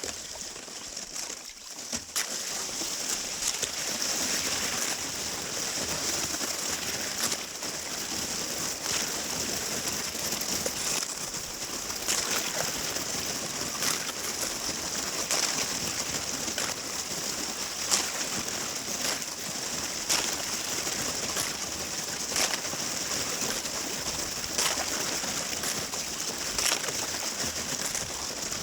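Kayak paddling: the paddle blades dip and splash into the water every second or two over a steady high hiss of moving water.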